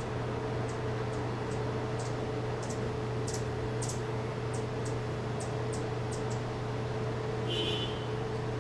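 Hummingbirds at the nest giving faint, very high chip notes, about a dozen short ticks spaced irregularly over the first six seconds, then a brief squeak near the end as the adult feeds the chick. A steady low hum runs underneath throughout.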